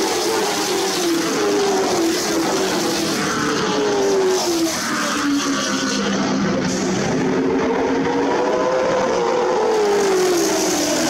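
Pack of late model stock cars racing past on a short oval, several V8 engines at high revs together. Their pitch falls over the first few seconds, bottoms out about halfway, then climbs again as they accelerate.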